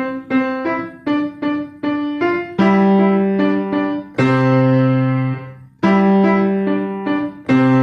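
Piano playing a simple beginner piece. It opens with a run of short, detached staccato notes, about three a second, then moves to longer held notes with a bass note underneath.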